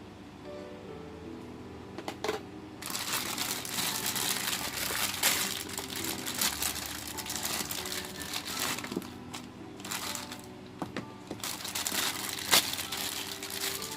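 Plastic packaging crinkling and crackling as it is handled and unwrapped, with a few sharp clicks.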